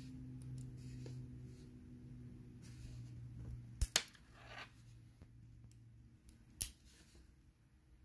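Small zinc-alloy TSA cable combination padlock being worked by hand: two sharp clicks close together about four seconds in, a short scrape after them, and one more click near seven seconds. A low steady hum underneath stops about six seconds in.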